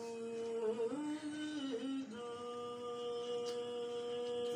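Wordless opening melody of a ghazal: slow, long held notes that step between a few pitches, the last held steadily for over two seconds.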